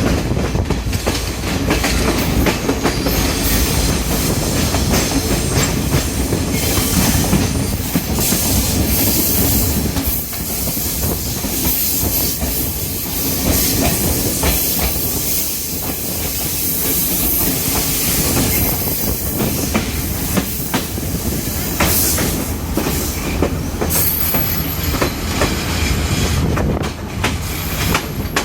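Diesel express train running on the rails: a steady rumble with wheels clicking over rail joints and squealing, and a high-pitched hiss that grows stronger after the middle.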